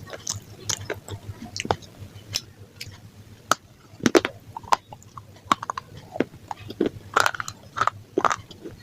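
Close-up crunching and chewing of pizza, with irregular crisp crackles of the crust being bitten and chewed.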